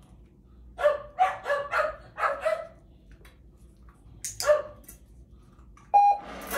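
Collie-type puppy barking: a quick run of about six short, high barks about a second in, and two more about four seconds in. Near the end a brief steady tone sounds, followed by a rushing hiss.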